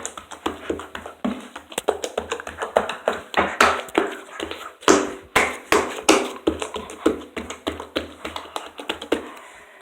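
Slime being hit and jabbed hard and fast by hand: a quick, irregular run of sharp taps, several a second.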